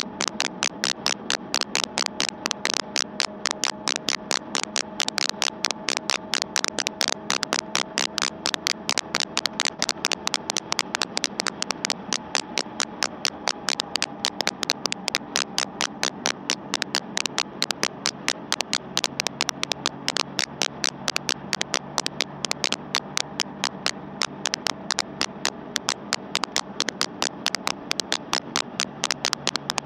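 Background music with a steady, fast beat of about four beats a second over held tones.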